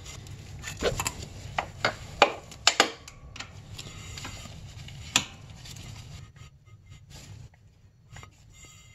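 Irregular metallic clicks and taps of a wrench and gloved hands working a fitting on a snowmobile engine's oil injection pump, with glove and rag rustling between the clicks. A faint low steady hum runs underneath.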